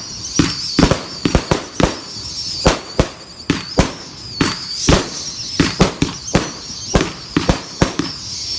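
A 260-shot firework cake firing in rapid sequence: sharp bangs about three a second, unevenly spaced, over a continuous high wavering whistle.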